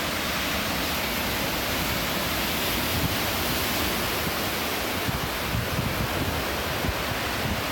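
Steady hiss of ocean surf washing over shoreline rocks, with wind buffeting the microphone in low rumbles from about five seconds in.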